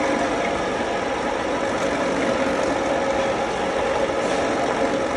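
Stainless-steel bowl chopper running steadily as it chops ginger: a constant motor hum over even, unbroken machine noise.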